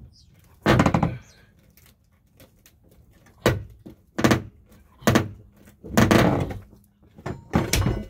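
Ford F-150 pickup door pushed shut again and again against a hockey stick wedged on its hinge side, giving about six heavy thunks. Each push levers the sprung door hinges back into place.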